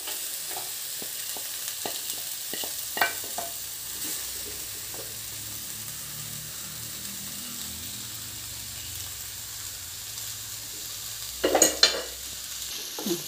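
Diced snake gourd sizzling steadily in a frying pan. Coconut paste is scraped into it from a glass bowl with a wooden spatula, giving light knocks and taps in the first few seconds and a louder clatter near the end.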